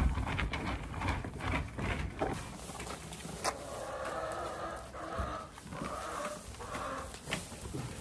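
Hens clucking, with a run of drawn-out pitched calls through the middle, over scattered short knocks and rustling.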